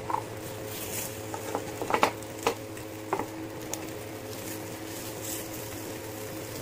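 A knife clicking and scraping against an appe pan as appe are turned over in their cups, a few sharp clicks clustered around two seconds in, over a steady low hum.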